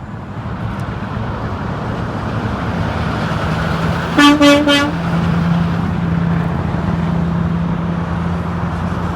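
Semi-truck horn giving one short honk, under a second long, about four seconds in, over steady highway traffic noise and the low, steady drone of a passing truck engine.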